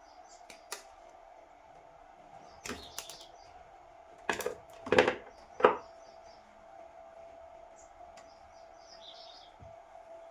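A few sharp knocks and clicks, the loudest three coming close together around the middle, over a faint steady tone. Small birds chirp briefly in the background.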